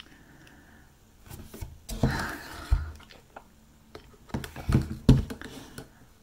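Plastic cup of boba tea picked up and sipped through a straw: two short clusters of knocks and rustles from the cup, with a brief slurp.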